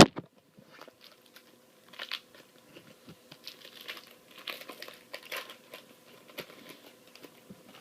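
Trading cards and a foil card-pack wrapper being handled: a sharp tap at the start, then irregular crinkling and rustling.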